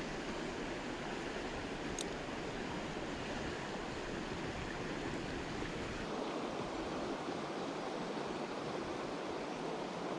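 Shallow creek water running steadily over a rocky bed, with a brief high chirp about two seconds in.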